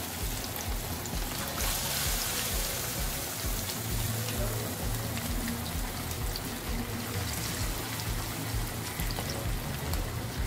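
Flour-and-egg-coated chicken pieces deep-frying in hot oil in a wok over medium heat: a steady sizzle of bubbling oil with constant small crackles.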